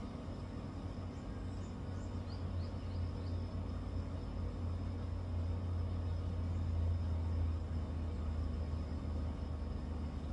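A steady low rumble that swells toward the middle and eases near the end, with a few faint, short high chirps about two seconds in.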